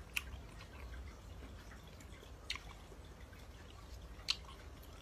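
Faint wet chewing of mango salad, with three sharp mouth clicks spread across the few seconds and small ticks between them, over a low steady hum.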